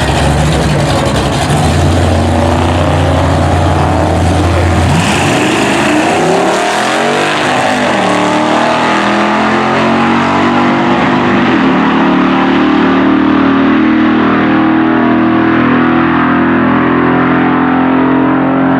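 Drag-racing car engines at the strip: a steady low engine note, then about five seconds in the engines rise in pitch as they accelerate, and the sound thins out as the cars pull away down the track.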